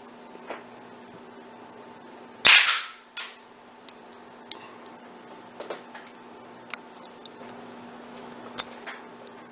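A homemade mini cannon, made from a barbecue lighter's piezo igniter and fuel tank and an airsoft-gun barrel, firing once with a sharp bang about two and a half seconds in, and a shorter snap less than a second after. A few faint clicks follow.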